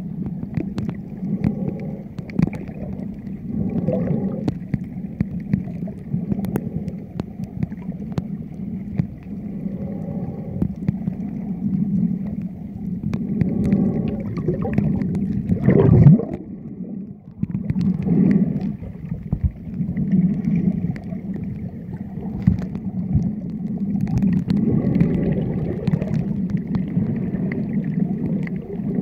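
Muffled underwater sound picked up by a submerged camera: a low, rumbling wash of water and bubbling that swells and eases every few seconds, with a faint steady hum under it. The loudest swell comes about halfway through.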